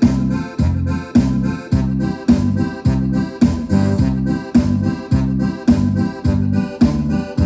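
Electronic home keyboard playing an automatic accompaniment pattern, with organ-like chords over a bass line in an even, repeating rhythm of about two beats a second, heard through an external loudspeaker box.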